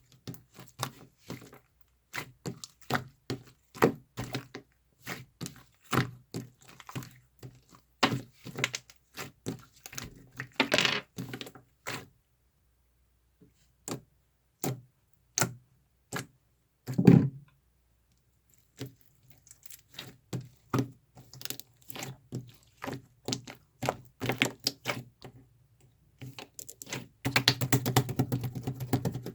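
Close-up handling noise: irregular small clicks, taps and knocks, with one louder knock around seventeen seconds in. There is a short rustling stretch about eleven seconds in and a longer, denser one near the end.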